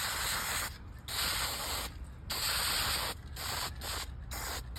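Aerosol spray paint can (Krylon Dual Super Bond hammered finish) spraying in bursts: three sprays of about a second each, then several short puffs.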